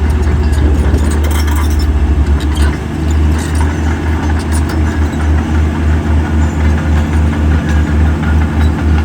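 Heavy diesel engine of earthmoving machinery running under load. A deep low throb pulses about twice a second from about three seconds in and is faster before that, with a few metallic clanks in the first few seconds.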